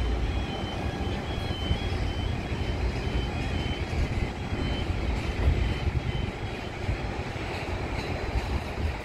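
Distant Airbus A320neo jet engines on the landing rollout: a low, uneven rumble as the airliner slows on the runway.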